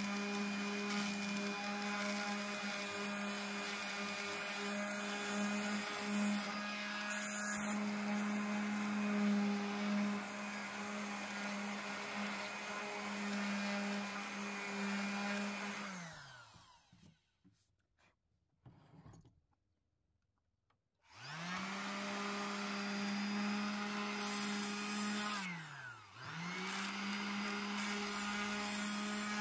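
Electric orbital sheet sander running with a steady hum as its pad sands a wooden door. About halfway through it winds down and stops for a few seconds, then spins back up, with one short dip in speed and recovery near the end.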